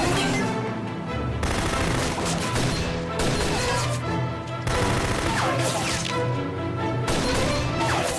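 Bursts of automatic gunfire over a dramatic film score, the shots coming in several stretches of a second or two.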